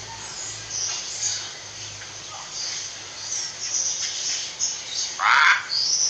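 Birds chirping: short high chirps scattered throughout, and one louder, lower call a little after five seconds in.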